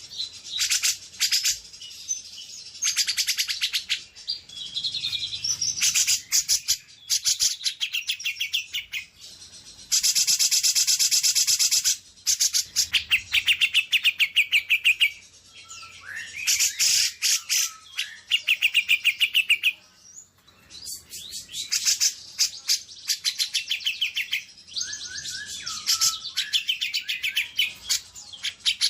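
Songbird song from a bird-song training (masteran) recording: bursts of fast chattering trills and rapid runs of repeated high notes. About ten seconds in there is one long unbroken rattling trill lasting about two seconds.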